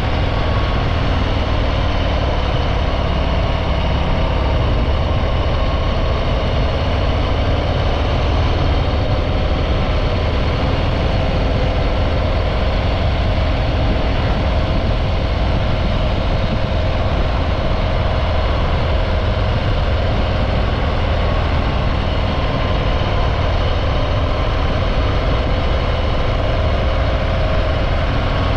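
Harley-Davidson Breakout 114's Milwaukee-Eight 114 V-twin running steadily through its stock exhaust, at an even, unchanging engine speed.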